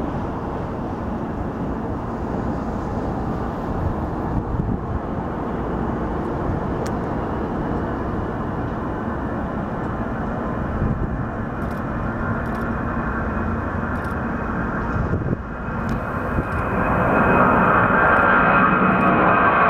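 The four General Electric TF39 turbofans of a Lockheed C-5 Galaxy at takeoff power during the takeoff roll: a steady, deep rumble. About three-quarters of the way in, the sound grows louder and a whine of several steady tones joins it as the aircraft passes.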